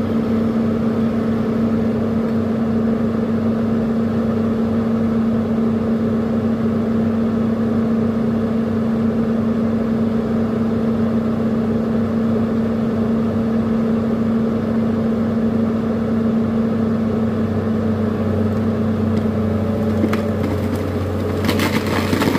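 Kobelco excavator's diesel engine running steadily under the moving boom; its note drops lower near the end, and a few sharp knocks come just before it ends.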